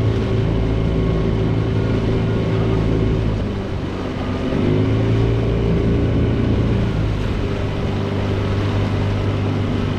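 Boat motor running steadily. About three and a half seconds in its speed drops off, then climbs back up a second later and holds.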